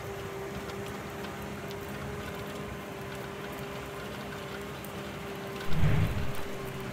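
Tractor engine running steadily with a constant hum, and a short, loud low thump near the end.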